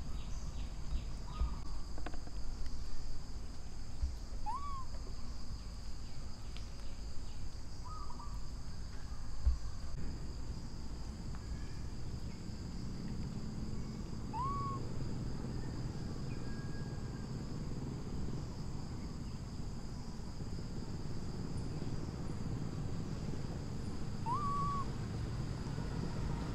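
Outdoor ambience: a steady high-pitched insect drone over a low rumble. A short whistled call that rises then falls sounds about six times, several seconds apart.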